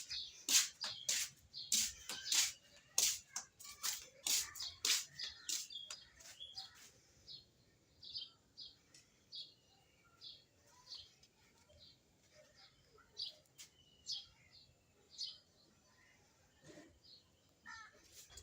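Small birds chirping: many short, sharp, high notes, coming thick and fast for the first six seconds and then more scattered.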